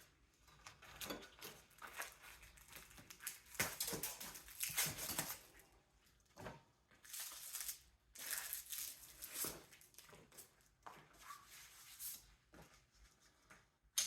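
Irregular scraping, crinkling and clicking of parts being pulled and handled while a mini split air-conditioning unit is taken apart by hand, in uneven bursts with short pauses.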